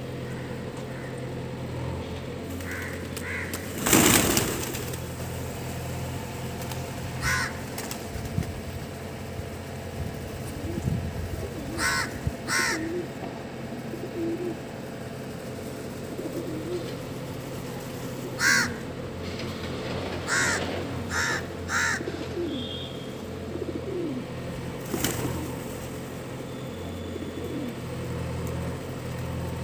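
A crow cawing repeatedly, about eight short calls spread through the middle of the stretch, over soft low cooing from a feeding flock of rock pigeons. A loud rush of noise comes about four seconds in.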